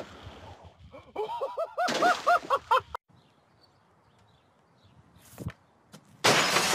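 A golf club clicks on a ball at the start, followed by a run of short, rising-and-falling yelping calls. Later a hockey stick cracks against a puck, and near the end glass shatters loudly as the shot breaks a window.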